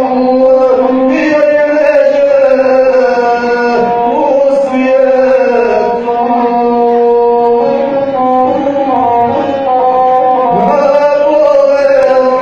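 Gusle, the Balkan single-string bowed fiddle, played in a continuous wavering line, with a man's voice chanting epic verse to it.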